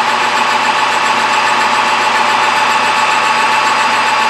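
Metal lathe running steadily, a constant whine over a steady mechanical hum.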